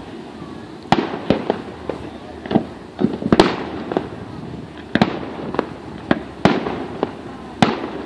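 Aerial fireworks shells bursting in a string of sharp bangs, roughly one a second, each trailing off in a rolling echo. The loudest comes about three and a half seconds in.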